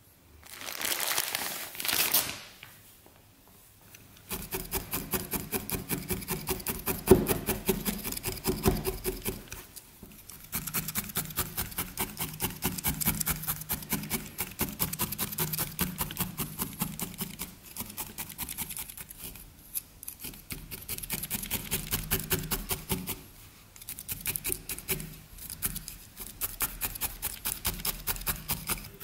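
Felting needle stabbed rapidly and repeatedly through wool into a foam felting mat, a steady rhythm of several sharp strokes a second that breaks off briefly twice. A short rustle of handling comes before the stabbing starts.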